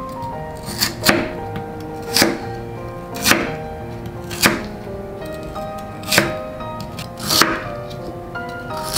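Kitchen knife slicing through raw lotus root into a wooden cutting board: a crisp cut ending in a tap, about once a second, some seven slices, over soft background music.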